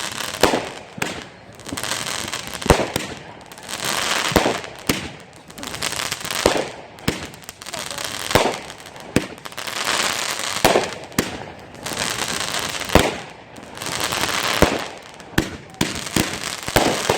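Consumer fireworks going off: a rapid, irregular series of sharp bangs, one or two a second, with crackling hiss between them.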